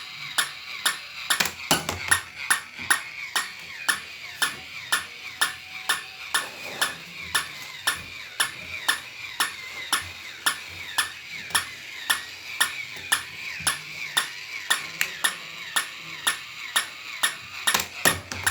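Battery-operated toy puppy running: regular sharp clicks, about three a second, over a steady high-pitched whine.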